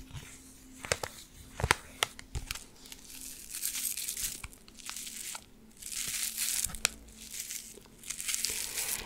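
Small paper packets of Easter egg dye crinkled between the fingers, one in each hand, close to the microphone. There are a few sharp crackles in the first two seconds, then three longer spells of crinkling.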